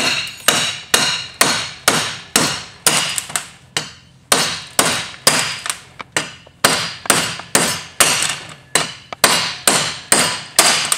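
Hammer blows knocking the wheel studs out of a Dana 30 front hub, metal on metal. Steady strikes about two a second, each with a short metallic ring, with a brief pause about a third of the way through.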